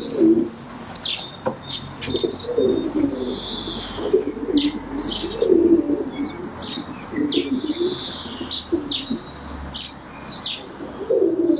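Pigeons cooing in repeated low phrases, with short high bird chirps scattered among them.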